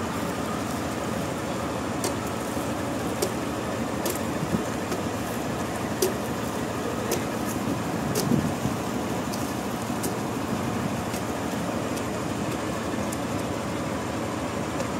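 Sawmill machinery running steadily, with scattered sharp clicks and knocks and a brief louder swell about halfway through.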